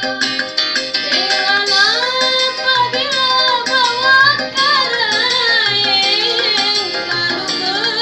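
Instrumental break of a song. A lead melody slides and wavers in pitch over keyboard-style backing chords and a steady low drum beat.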